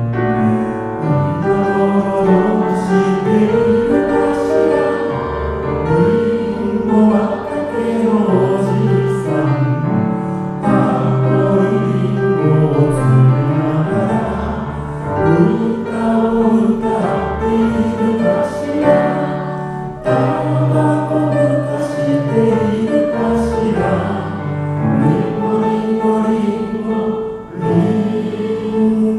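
Grand piano accompaniment with a man singing and a group of voices singing along to a slow Japanese children's song.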